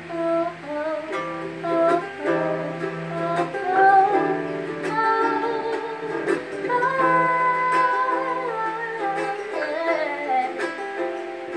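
A woman singing to two guitars, an archtop and an electro-acoustic, plucked in accompaniment.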